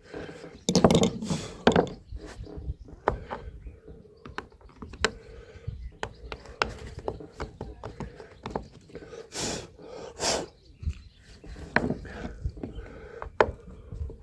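Hand tools scraping, clicking and tapping on a wooden deck covering board while a deeply buried screw is dug out and its slot cleared for the screwdriver. Irregular small knocks, with a few short louder scrapes about a second in and again near the middle.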